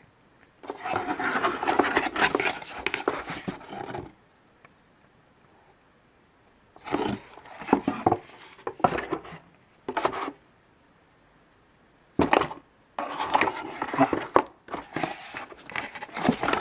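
Paper and cardboard rustling and scraping in three bursts of a few seconds each, as printed paperwork and a disc in a paper sleeve are handled inside a laptop's cardboard box.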